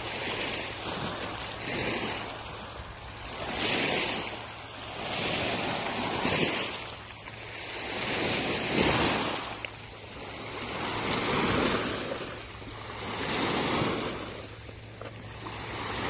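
Sea waves washing in, the rush rising and falling every two seconds or so.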